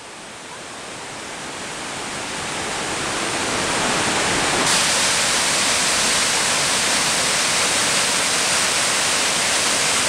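Waterfall on the Kyngyrga mountain river, pouring into a rock pool: a steady rush of water. It swells over the first four seconds, then holds steady and turns brighter about halfway through.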